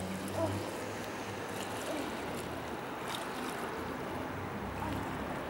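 Steady swishing and lapping of river water around a swimmer's strokes, with a few faint small splashes. A low hum is heard at the start and stops about half a second in.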